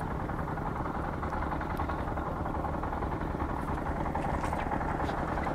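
Steady low rumble of outdoor background noise, even throughout, with a few faint ticks.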